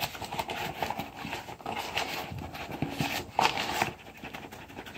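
A paper flour bag rustling and crinkling as a measuring cup is dug into it to scoop flour. The rustle is uneven, with irregular small knocks, and dies down near the end.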